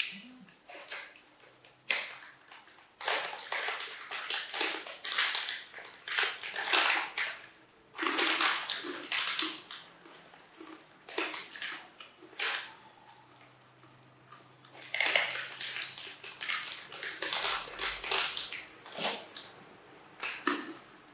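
A young monkey crunching cracker-coated peanuts: irregular bursts of crisp crunching in runs of a few seconds, with short pauses between.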